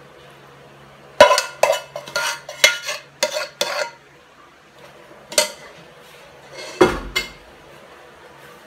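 A spoon scraping and knocking against the inside of a metal cooking pot: a quick run of about seven sharp clinks, then a single knock, then a heavier clank with a dull thud near the end.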